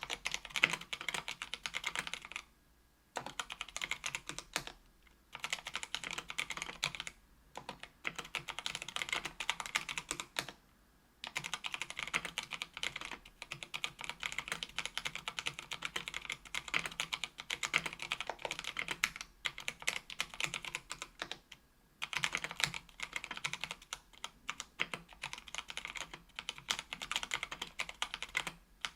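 Typing on a KBDfans Tofu 65% aluminium mechanical keyboard with stock, unlubed Kailh Brown 50 g tactile switches on an aluminium plate. Fast runs of key clacks, broken by several short pauses.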